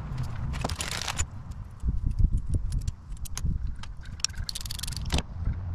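Hand-handling sounds: a small clear plastic parts bag and a soft motorcycle bag's fabric and fittings rustle and crinkle. There are two bursts of rustling, about half a second in and again near the end, among scattered clicks and light knocks.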